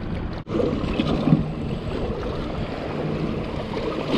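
Yamaha 115 outboard motor running as the boat moves, with water splashing along the hull and wind on the microphone. The sound drops out briefly about half a second in, then runs on steadily.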